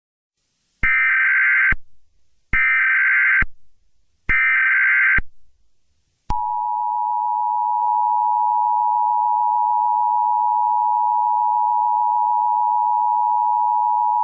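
Emergency Alert System tones: three short bursts of the SAME header's digital data screech, each about a second long, then from about six seconds in the steady two-tone EAS attention signal holding on. This is the header and alert tone that open an emergency alert message.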